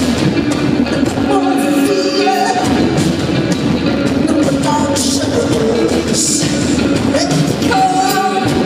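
Rock band playing live: electric guitar, bass guitar and drums, with a woman singing in short phrases over them.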